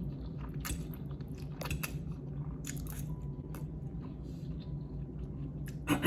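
A person chewing food close to the microphone, with soft wet mouth clicks about once a second and a louder one near the end.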